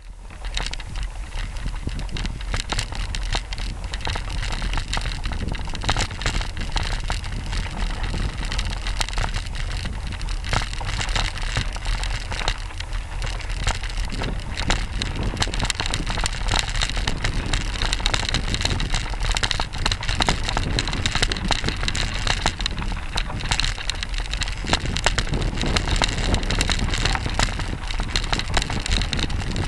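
Mountain bike riding over a rocky dirt trail: wind buffeting the camera microphone with a low rumble, over a dense, constant rattle and crackle of the tyres and bike on stones and gravel.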